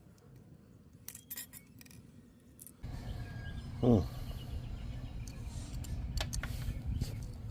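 Light metallic clinks and clicks of small die-cast toy truck parts being handled and pried apart after the rivets are drilled out. A low handling rumble comes in about three seconds in, and a short, louder pitched sound comes about four seconds in.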